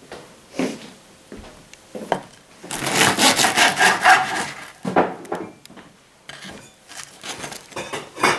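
A knife sawing through the crisp crust of a home-baked loaf on a wooden cutting board, making scratchy crunching strokes. The longest stretch of steady sawing comes about three seconds in, with shorter strokes before and after.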